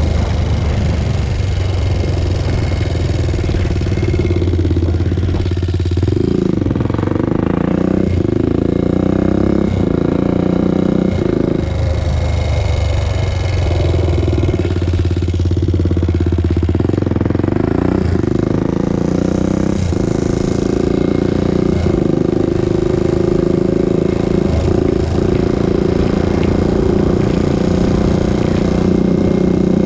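Honda TRX400EX ATV's single-cylinder four-stroke engine running under way, revving up and back down several times with steadier stretches in between.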